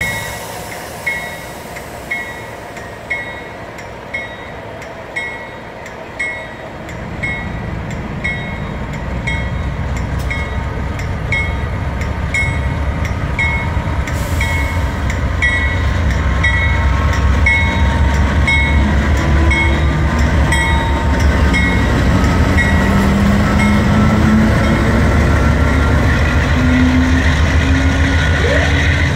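BNSF GE AC4400CW diesel locomotive pulling a train away from a stop: its bell rings about once a second throughout. From about seven seconds in, the engine's low rumble builds and grows louder, and near the end a rising tone comes in as the train gathers speed.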